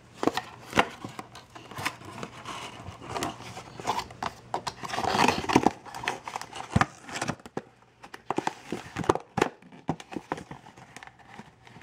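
Stiff clear plastic packaging and its foil-covered card insert crinkling, creaking and clicking as a mini drone is worked loose from a tight fit by hand, with a louder stretch of rustling about five seconds in.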